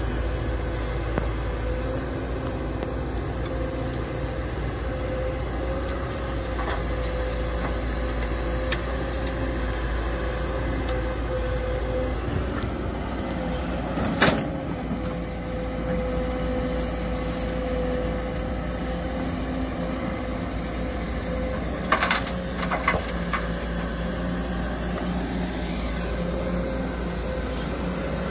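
Kobelco crawler excavator's diesel engine running steadily under working load as it digs, with a steady tone held over the engine. A sharp knock sounds about halfway through, and a few more come about three quarters of the way in.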